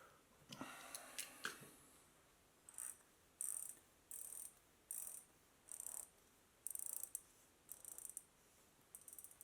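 Regreased Schwinn bicycle freewheel turned backwards in short strokes, its pawls ticking in quick runs, about nine runs roughly once a second after a few knocks at the start. The ticking means the pawls are catching through the new grease.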